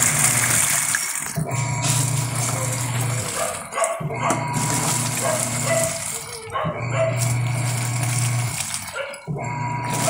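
Top-load automatic washing machine running its wash cycle: the pulsator motor hums while the sudsy water churns, stopping briefly and reversing every two to three seconds. The machine is washing normally on a newly replaced controller board.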